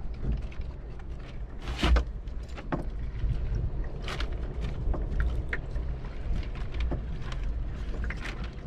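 Wind rumbling on the microphone over water slapping a small boat's hull, with scattered light clicks and knocks, the loudest about two seconds in.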